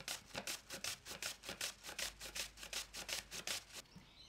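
Green apple being grated on a plastic julienne grater with metal teeth: quick, even rasping strokes, about five a second, that stop shortly before the end.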